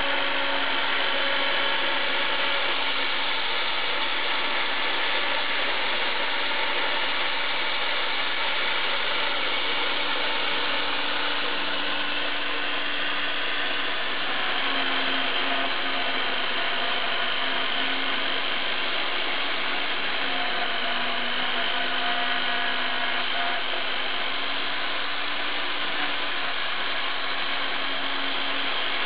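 Router spindle on a homemade CNC router running steadily at full speed, with a few tones in the noise that shift in pitch now and then as the machine works.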